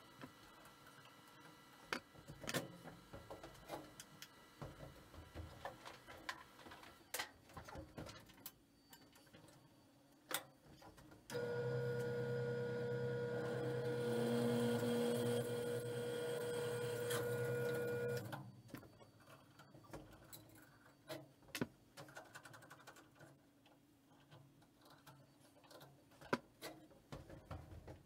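Electric welding arc buzzing and frying steadily for about seven seconds, starting about eleven seconds in and cutting off abruptly. Scattered clicks and knocks of metal being handled come before and after it.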